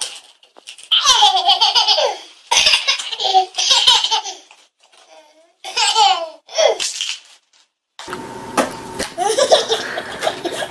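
A toddler belly-laughing in three long bursts of high-pitched giggles, with short pauses between. Near the end a baby laughs again over light background noise.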